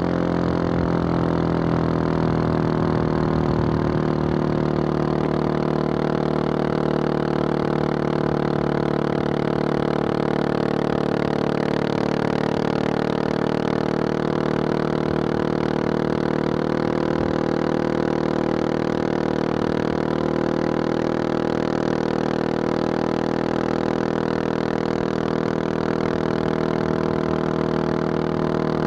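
Husqvarna 701 Supermoto's single-cylinder engine, fitted with a Wings aftermarket exhaust, running under way at road speed. Its note shifts over the first few seconds, then holds steady at cruise.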